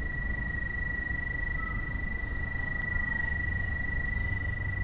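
Steady high electronic tone from a drain-camera locator's receiver, held at one pitch, over a low background rumble. The tone shows the locator picking up the camera's sonde in the stormwater pipe below.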